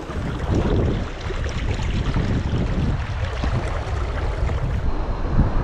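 Wind buffeting the microphone in uneven low gusts, over the steady rush of creek water.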